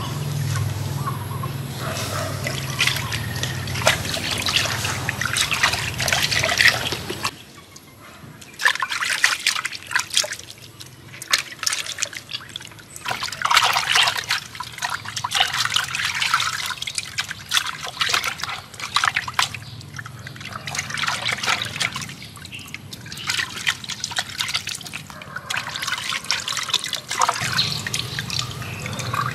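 Water splashing, sloshing and dripping as raw pork ribs are washed by hand in a clay pot of water, in bursts with short pauses between.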